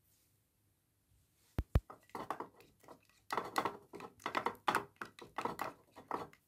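Silicone spatula stirring thick dish soap and salt in a glass dish: two sharp knocks about a second and a half in, then a run of irregular stirring strokes, two or three a second.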